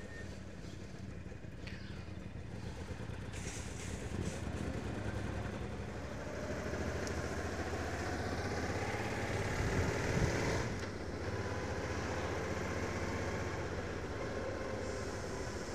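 Suzuki Intruder VL1500LC's liquid-cooled V-twin running as the motorcycle rides along, heard from the rider's helmet camera. The revs climb, then drop suddenly about ten seconds in.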